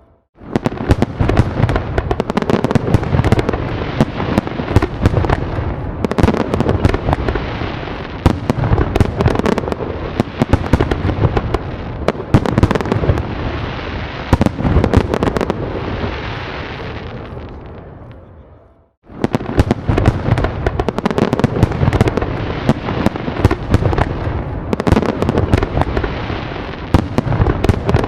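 Fireworks going off in a dense, continuous barrage of bangs and crackling. The barrage fades away into a moment of silence about two-thirds of the way through, then starts again abruptly.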